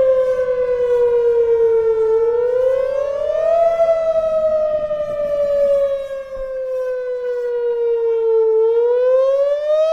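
Outdoor tornado warning siren sounding its wail in a test. A loud, steady tone falls slowly in pitch for about two seconds, climbs back over a second or so, falls slowly again for about five seconds, and starts rising again near the end.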